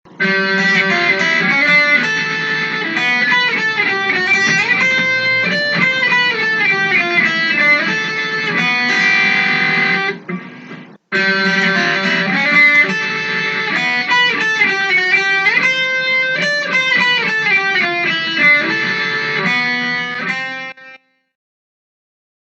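Instrumental intro music led by a plucked electric guitar, breaking off briefly about halfway through and ending a second or so before the end.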